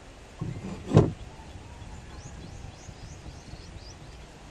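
A heavy wooden board thuds down onto a wooden frame about a second in, after a lighter knock. Faint, short high chirping follows.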